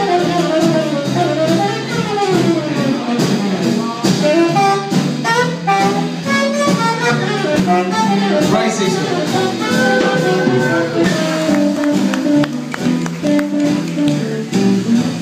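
Live trad jazz band playing an instrumental passage: a saxophone carries the melody over guitar, upright bass and drums.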